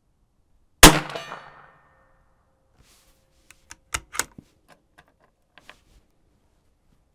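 A CZ 457 Varmint MTR .22 LR rifle firing one shot of CCI Standard Velocity: a single sharp report with a short ringing tail. About two seconds later comes a run of small metallic clicks as the bolt is worked to eject the case and chamber the next round.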